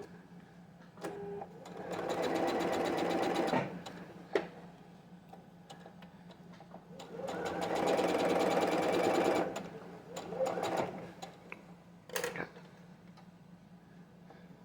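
Sewing machine stitching quilt pieces in two short runs, the second a little longer, with brief clicks and knocks between them as the fabric is handled.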